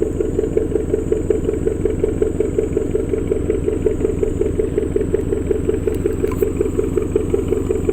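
Small engine running steadily at idle, an even putter of about five or six beats a second.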